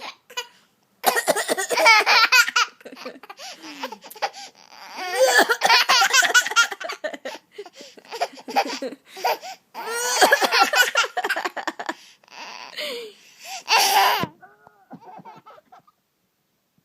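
A young child laughing hard in several long bouts, each a quick run of pulsing laughs, with the last short bout about fourteen seconds in, then trailing off into soft little voice sounds.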